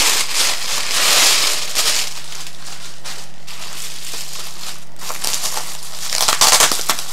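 Tissue paper crinkling and rustling as a small tissue-wrapped parcel is handled, loudest in the first two seconds and again near the end.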